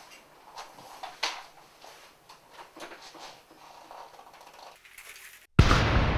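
Faint clicks and light knocks, then about five and a half seconds in a sudden loud boom that dies away slowly, an edited-in emphasis sound effect.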